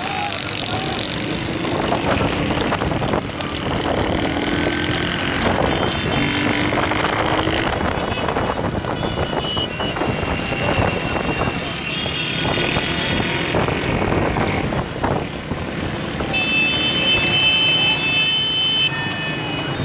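Motorcycles and other vehicles running in a crowd behind a horse-drawn racing cart, with horns sounding several times, the longest near the end.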